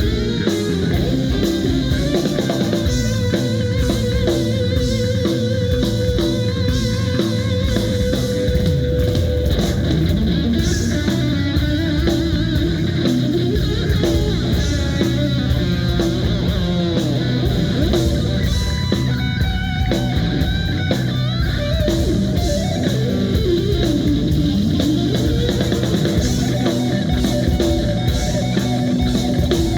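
Rock band playing live with no words heard: electric guitar over drum kit and bass guitar, with a long held guitar note a few seconds in and bending notes near the end.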